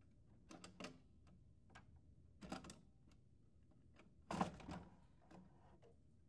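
Plastic clicks and clacks of a Lexmark MS82x-series printer's fuser being unlatched and pulled out: a few clicks as the blue locking levers are turned, another clack about two and a half seconds in, and the loudest knocks about four and a half seconds in as the fuser unit slides out of its bay.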